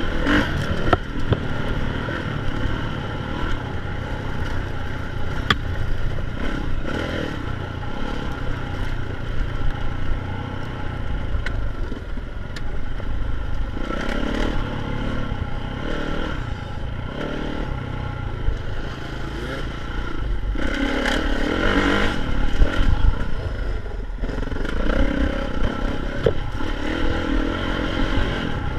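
Dirt bike engine running steadily while riding, with a few sharp knocks from the bike over the trail.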